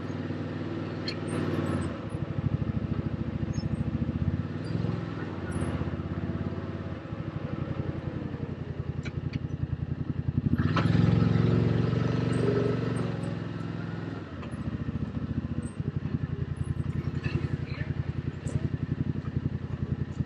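Side-by-side UTV engine running as it drives along a dirt trail, with a steady pulsing note. About halfway through it speeds up and grows louder for a few seconds, then settles back.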